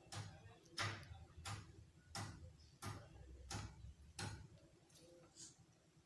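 A row of sharp, evenly spaced clicks, about three every two seconds: seven strong ones, then two fainter ones near the end.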